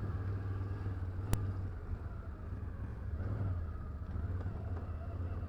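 Can-Am ATV engine running at low speed, a steady low drone, with one sharp click about a second and a half in.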